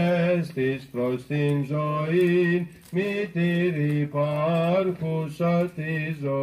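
A single male voice chanting Byzantine church chant into a microphone, in long held notes that bend in pitch, broken into short phrases with brief pauses for breath.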